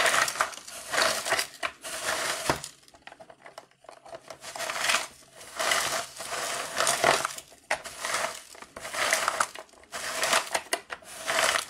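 Plastic gears and scraper of a hand-cranked 1994 Tyco Doctor Dreadful Ice Scream Machine grinding and scraping through frozen chocolate ice cream, in uneven strokes with a pause about three seconds in. The crank's gear does not stay engaged and keeps popping off.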